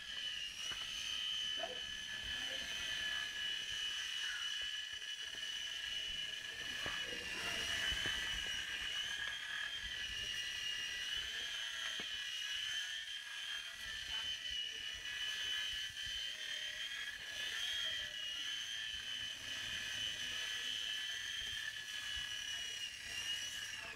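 Solo Pro micro RC helicopter flying: the steady high-pitched whine of its small electric motors and rotor, the pitch wavering slightly as it manoeuvres.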